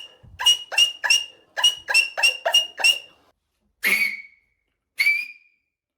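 A beatboxer's loud mouth whistle: a rapid string of short, sharp, high whistle chirps, about three a second, then two longer single whistles about four and five seconds in.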